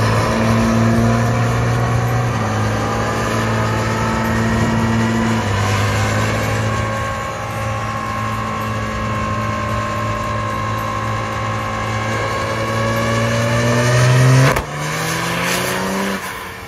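Dodge Ram diesel pickup making a full-load pull on a chassis dyno. The engine is held hard at high rpm with the pitch creeping slowly upward, then the throttle lifts near the end and the revs fall away.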